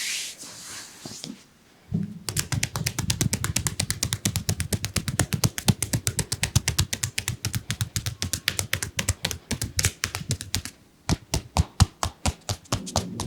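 Rapid percussive massage strokes: hands tapping and slapping on a leg in a quick even rhythm, several strokes a second. The strokes start about two seconds in, pause briefly near the end, then resume sharper.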